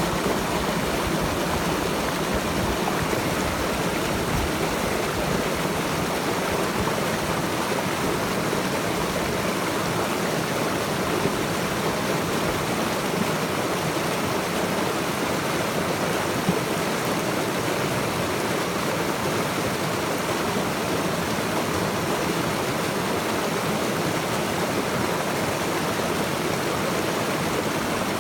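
A stream of running water, rushing steadily and evenly.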